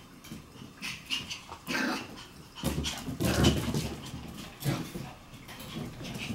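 Shiba Inu puppies playing, with short whimpers and yips among thumps and scuffling; the loudest scuffle comes about three seconds in, with another thump near five seconds.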